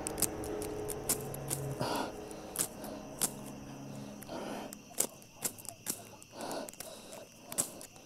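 A flint striker scraped again and again to throw sparks into dry grass tinder: about a dozen sharp, short strikes at uneven intervals as a fire is being lit.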